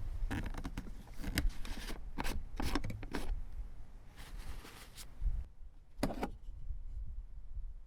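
A run of short rubbing and scraping strokes from handling a part of a 1990 Volvo 240, about six quick strokes in the first three seconds, then a softer scrape and one more stroke near the end.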